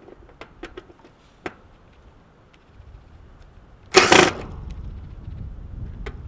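Small clicks of a DeWalt cordless drill and its bit extension being handled, then a short loud burst of noise about four seconds in, after which the drill's motor runs with a low rumbling whir as it drives out the contactor's mounting screws.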